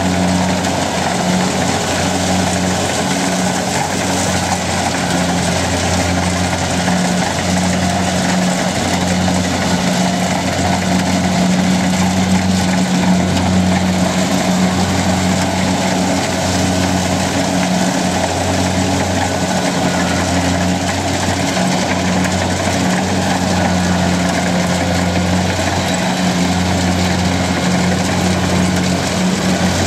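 Kubota DC-70 Plus combine harvester running steadily: a continuous low diesel drone under an even rushing machinery noise.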